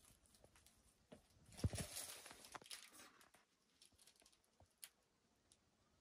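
Mostly near silence. There is a soft thump about a second and a half in, then faint scraping and crackling of dry earth and clothing for about a second as a hand and arm feel inside a hole in a crumbly soil cliff. A few faint ticks follow.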